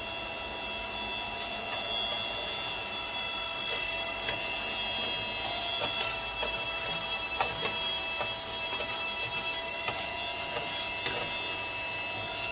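Kaleido M10 Sniper Pro electric coffee roaster running its cooling cycle: a steady motor-and-fan whine with scattered light clicks, as freshly roasted beans are cooled by air drawn through the vent.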